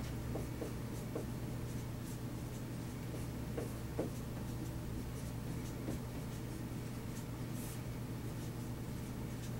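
Dry-erase marker writing on a whiteboard: faint, irregular strokes and soft taps as equations are written out, over a steady low room hum.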